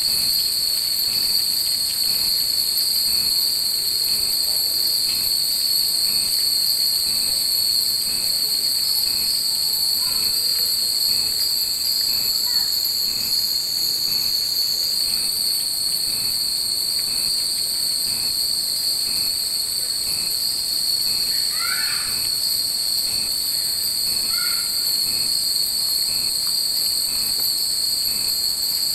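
Hundreds of bell-shaped wind chimes (fūrin) hanging in a tree, ringing together in the breeze as a continuous, shimmering high chime.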